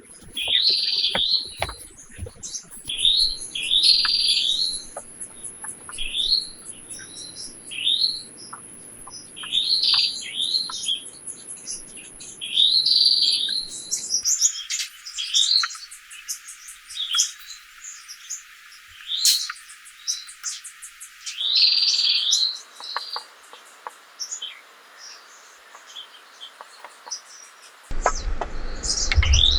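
Small birds chirping and singing, short bright chirp phrases repeating every second or two, with a thin steady high-pitched tone behind them for the first half.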